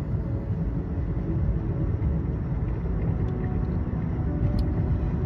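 Steady low vehicle rumble with a faint hum, the kind heard inside a running car.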